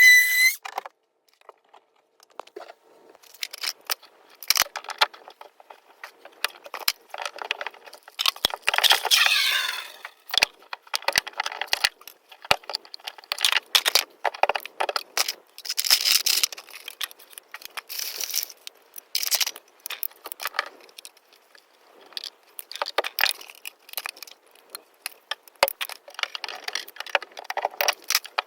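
Clinks, knocks and rattles of metal tools and plumbing fittings being handled, with a denser, busier stretch about eight to ten seconds in.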